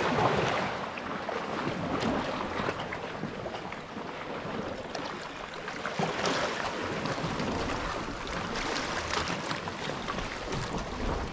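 Small sea waves washing against shoreline rocks, with wind blowing on the microphone: a steady rushing noise.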